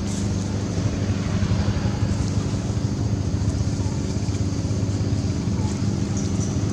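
A motor vehicle's engine running steadily with an even low hum.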